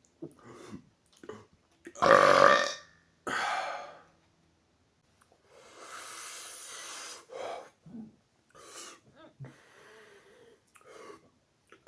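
A man's loud burp about two seconds in, followed by a shorter, quieter burst and then fainter breathy sounds.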